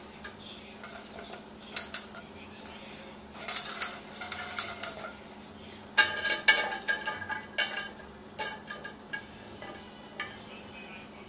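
Vegetable chunks being set into a ceramic roasting pan around a wire roasting rack, with clatters and clinks of the metal rack and a stainless steel bowl. The clinks come in several bunches, the loudest about six seconds in with a brief metallic ring.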